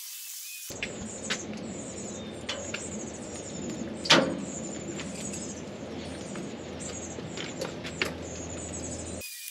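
Small birds chirping repeatedly in the background, with a sharp clack about four seconds in as a digital thermometer receiver is set against the smoker's metal side shelf, and a few lighter knocks around it.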